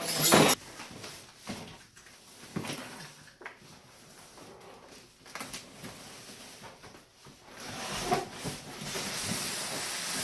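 Heavy cardboard parts boxes being handled and shifted: a loud knock or scrape at the start, then scattered faint knocks and rustles, with a steadier rustling noise near the end.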